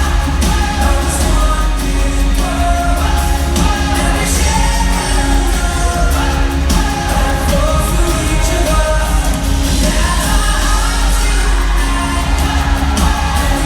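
A pop song playing, a singing voice over a steady heavy bass.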